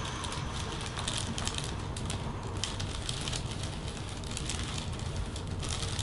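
Scattered faint clicks and rustling as a chiropractor's hands work a patient's head and neck during a neck adjustment, over a steady low room hum.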